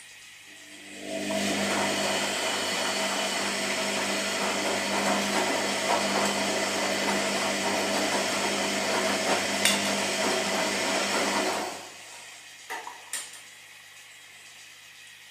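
Washing machine running: a low hum swells into a loud, steady churning noise with a steady machine tone about a second in. The noise drops back to the hum a few seconds before the end, followed by two quick clicks.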